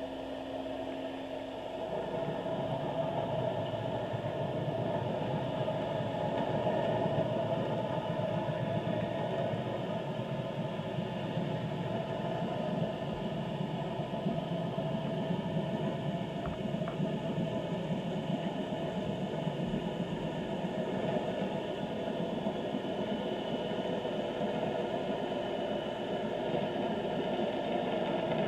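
Steady underwater drone and hiss picked up by a seafloor camera, growing louder about two seconds in and then holding steady.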